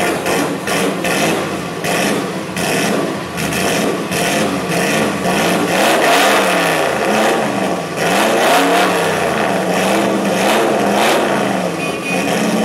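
Alfa Romeo 8C Monza's straight-eight engine running just after starting, blipped several times so that the revs rise and fall in repeated swells from about five seconds in.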